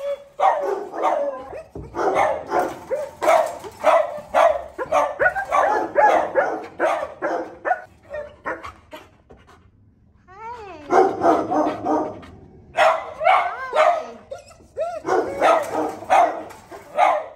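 Dog barking repeatedly in quick runs. The barking pauses for about two seconds a little past the middle, then starts again.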